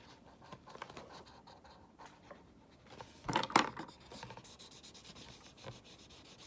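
Marker scratching and rubbing across paper in short colouring strokes, with a brief louder rustle about three and a half seconds in.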